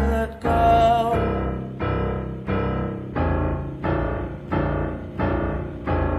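Music: piano chords struck in a steady, even rhythm, about three every two seconds, each one fading before the next.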